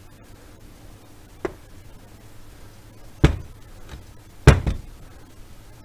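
Metal engine parts and tools handled on a wooden workbench: a light click, then two sharp knocks about a second apart, the second the loudest with a quick follow-up knock.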